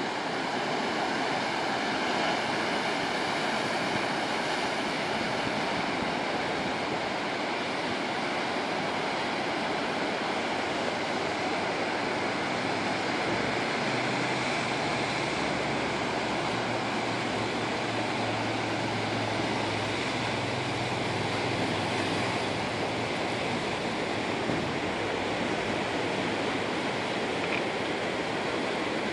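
Sea surf breaking and washing over a rocky shoreline: a steady rush of water.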